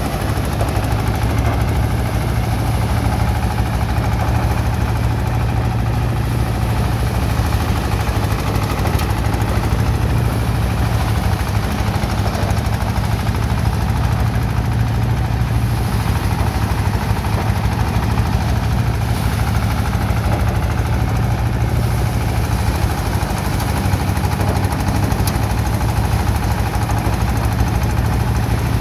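Engine-driven paddy thresher running steadily under load as rice is fed through it: a loud, even, low machine hum of engine and threshing drum with no change in speed.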